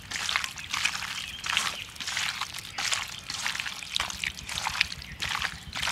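A hand kneading chopped chicken gizzards with onion, tomato, spices and mustard oil in a steel bowl: repeated wet mixing strokes, about two a second.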